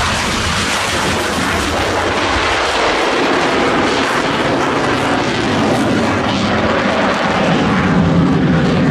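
MiG-29 fighter's twin turbofan jet engines at full power during takeoff and a steep climb: a loud, steady rushing noise with a crackle, growing a little louder near the end.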